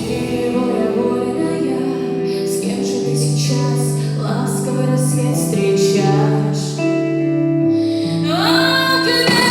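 A woman singing a song with instrumental accompaniment, holding long notes; near the end her voice slides up into a high sustained note.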